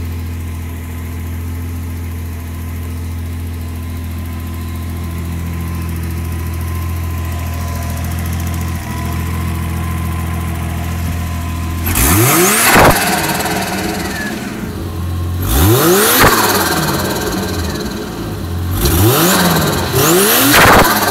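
Holden VL Commodore Turbo's RB30ET straight-six idling steadily, then revved in four quick blips from about halfway through. Each blip rises and falls in pitch and is joined by a hissing turbo flutter as the throttle snaps shut.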